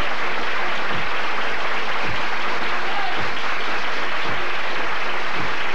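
Dense hand clapping from the flamenco rumba, with a low thump about once a second under it and a brief vocal call about three seconds in.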